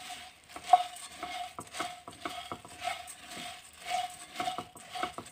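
A wooden spatula stirring puffed rice (murmura) in a dry kadhai, dry-roasting it on a low flame until it turns crisp. The grains rustle and scrape against the pan in irregular strokes, with small clicks.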